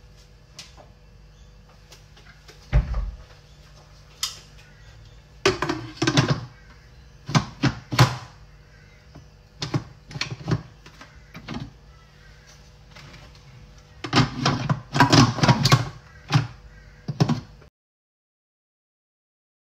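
The stainless-steel lid of an electric pressure cooker being handled, fitted and twisted into place: a series of sharp metallic clunks and clicks in irregular clusters. The sound cuts off abruptly near the end.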